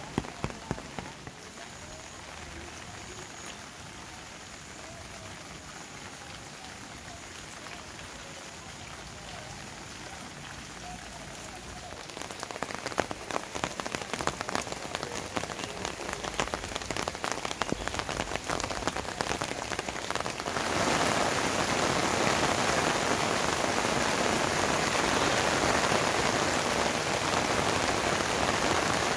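Heavy rain falling: a softer, even patter at first, then a thick spatter of close drops from about twelve seconds in, and about twenty seconds in a sudden step up to a loud, steady downpour hiss.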